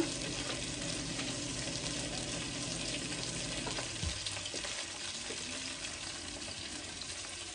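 Flour-coated beef tips frying in hot grease in a pot: a steady crackling sizzle as they brown. A single dull thump about four seconds in.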